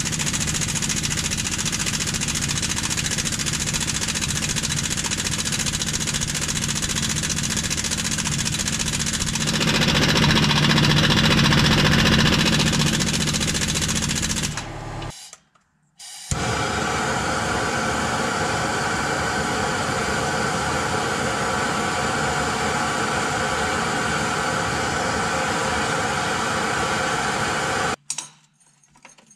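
Impact wrench hammering steadily on a truck's brake chamber mounting bolt, louder for a few seconds in the middle. It stops for about a second halfway, then runs again until it cuts off near the end.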